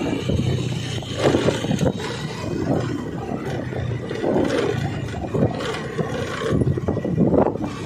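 Motorcycle running on the road: a steady low engine drone under irregular gusts of wind buffeting the microphone.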